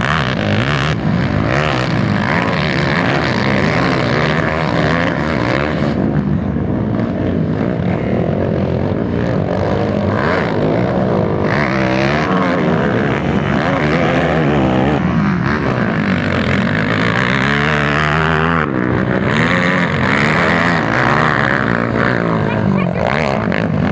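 Several racing quad ATV engines revving together, their overlapping pitches rising and falling as the riders throttle up and back off around the track and over the jumps.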